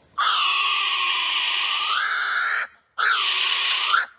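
Female kiwi's raspy call: one long hoarse cry, then a shorter rising-and-falling one about three seconds in.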